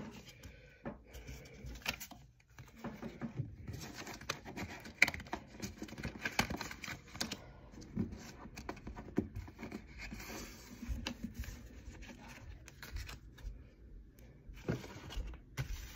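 Pokémon trading cards and their plastic packaging being handled up close: irregular rustling, scraping and light clicks.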